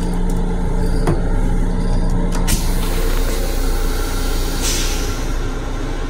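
Steady low rumble and hum of an M7 electric railcar, heard inside its small restroom, with sharp knocks about a second in and again around two and a half seconds as the toilet seat is lowered. A brief hiss comes near the end.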